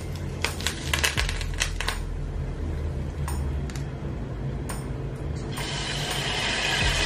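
Hot oil crackling and popping on the scallions, parsley and skin of a steamed fish, the pops thinning out to a few. About five and a half seconds in, a steady sizzle starts as liquid is poured into the hot saucepan.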